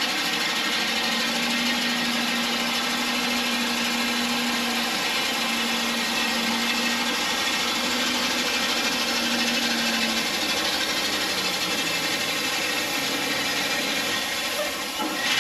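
Gravel spreader truck laying gravel: its engine and the spreader run with gravel pouring out in a steady, dense noise. A steady hum breaks off and comes back a few times in the first two-thirds.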